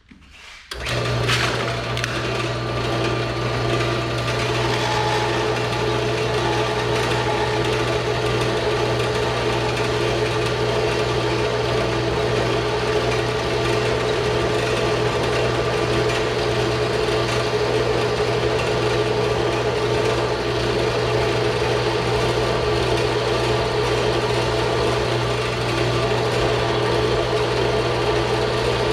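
Bandsaw starting up about a second in, then running steadily while it cuts through small pieces of scrap metal stock.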